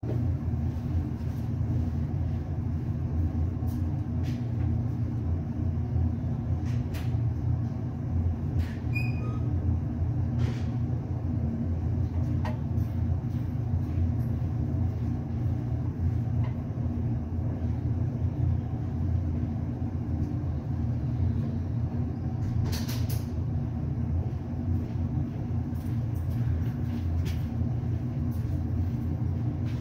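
A steady low mechanical hum that starts abruptly, with a few faint clicks and light taps on top.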